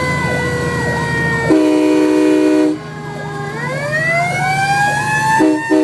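Fire engine responding with its sirens going: one siren tone slowly falls and later winds back up while a second siren wavers quickly alongside. About a second and a half in, the truck's train horn sounds a held chord of several notes for about a second. Near the end the train horn starts a run of short, quickly repeated blasts.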